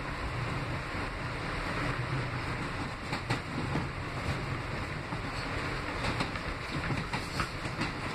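Steady running noise heard inside an R160B New York subway car moving along the track. From about three seconds in, irregular sharp clicks and rattles cut through it, as the wheels pass over rail joints and the car body shakes.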